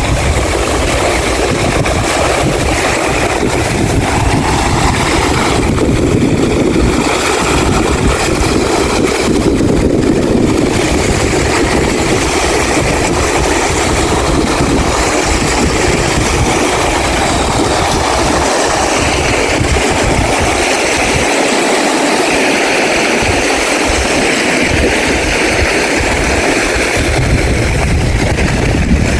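A motor running steadily, loud and unbroken, with no clear rhythm.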